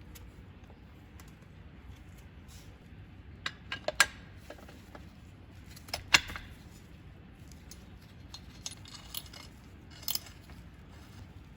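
Light metallic clinks and knocks of small metal parts or tools being handled on a workbench. A few come together about a third of the way in, two sharper ones about halfway, and lighter ticks follow.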